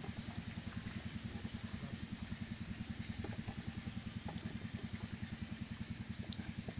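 A small engine running steadily at idle, an even, fast thudding of about a dozen beats a second.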